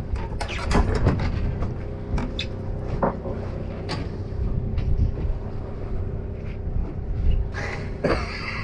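Charter boat's engine running with a steady hum and rumble, under scattered sharp clicks and knocks.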